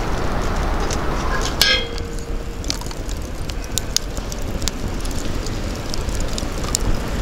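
Charcoal and wood fire burning in a metal brazier, crackling with many small sharp pops over a steady low rumble. A brief ringing clink about a second and a half in.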